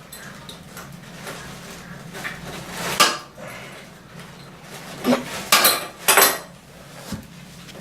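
Metal clinks and knocks from a wrench working the nuts on the toilet's floor bolts: one sharp knock about three seconds in, then three more in quick succession near the end.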